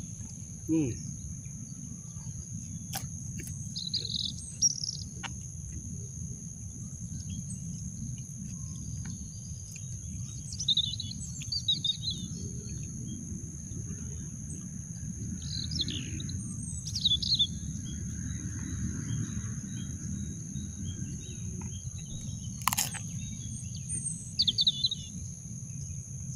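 Birds chirping in short calls every few seconds over a steady low outdoor rumble, with two steady high-pitched tones throughout. A single sharp click comes a few seconds before the end.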